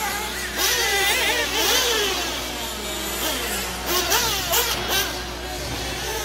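Radio-controlled off-road buggies running on the dirt track, their motors whining and rising and falling in pitch as several cars accelerate and brake around the circuit.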